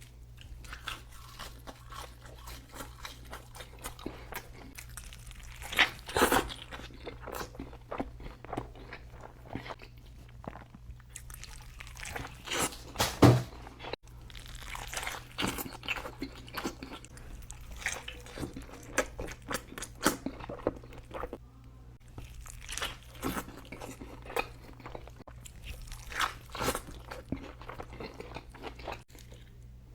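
Close-miked mukbang eating of a burger and fries: bites, chewing and crunching in an irregular run of wet clicks. A few louder bites stand out, the sharpest about thirteen seconds in. A steady low hum lies underneath.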